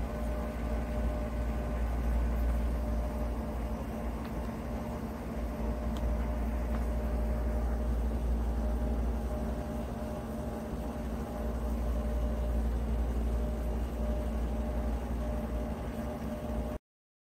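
Steady mechanical hum of a running CNC lathe in a machine shop: a low drone with several steady tones over it. It cuts off suddenly near the end.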